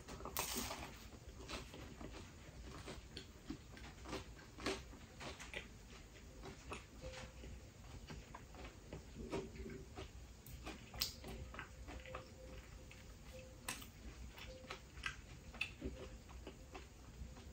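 A person biting and chewing a slice of spinach and cheese pizza: faint, irregular wet mouth clicks and small crackles of crust, with a slightly louder bite crackle about half a second in.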